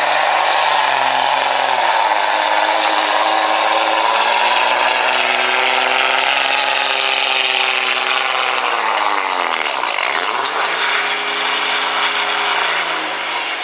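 Common-rail diesel pickup engine running at full throttle, pulling a weighted sled, with a loud hiss over the engine note. About ten seconds in the revs sag sharply and climb back, then drop away near the end as the pull finishes.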